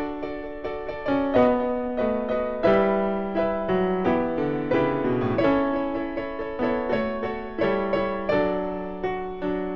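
Background piano music: a melody of notes struck one after another, each ringing and fading over lower held notes.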